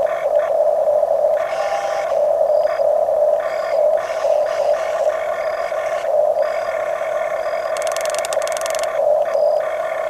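Electric drive motors and gearboxes of radio-controlled Huina construction models whining steadily. Higher motor whines cut in and out as the functions are worked, with a brief burst of rapid clicking about eight seconds in.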